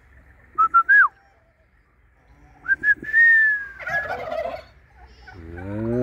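Domestic turkey flock: clear whistle-like notes, three short ones about a second in, then two short and one long, slowly falling note around three seconds. A tom starts gobbling near the end.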